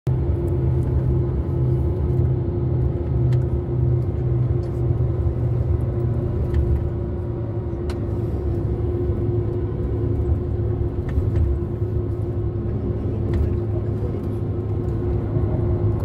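Engine and road noise heard from inside a moving vehicle: a steady low rumble with a constant hum, and a few faint ticks now and then.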